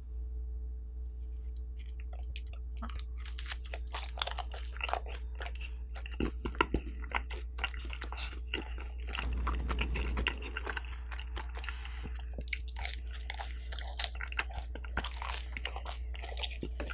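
Close-miked chewing and biting of pizza crust dipped in garlic dipping sauce, irregular crunches and mouth clicks starting about two seconds in.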